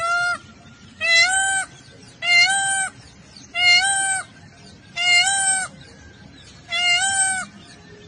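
Indian peacock calling: six loud calls in a row, each about half a second long and held at a fairly level pitch after a quick rise, coming about one every 1.3 seconds.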